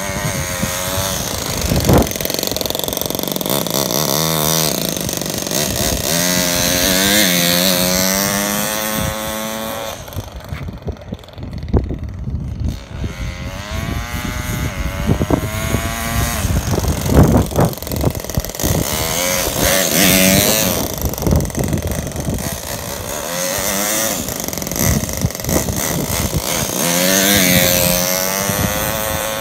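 Toyan four-stroke model engine in an RC truck running and revving, its pitch repeatedly climbing and falling back as the throttle is worked. The note drops away for a few seconds about a third of the way in, then comes back up.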